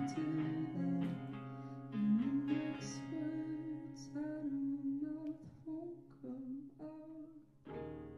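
A small band playing a song live: a woman sings over acoustic guitar, piano and violin. The music thins out and quietens a few seconds in, and the full band comes back in near the end.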